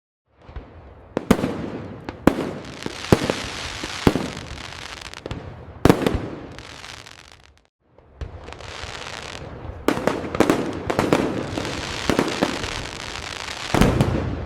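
Fireworks display: a string of sharp bangs over continuous crackling. The bangs break off for a moment about eight seconds in, then start up again.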